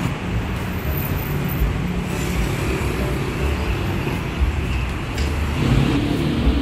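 Busy road traffic, cars and motorcycles passing, heard as a steady rumble of engines and tyres.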